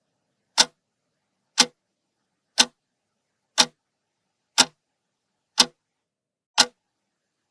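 Clock-tick sound effect counting down the time to guess a riddle's answer: one sharp tick each second, seven in all, with silence between.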